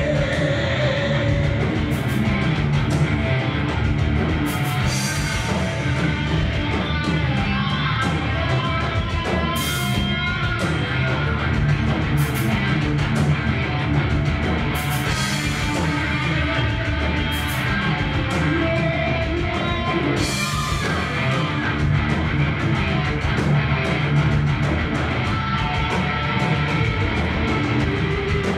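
Live rock band playing: electric guitars and drum kit, with a cymbal crash every two to three seconds, and a singer's voice in the mix.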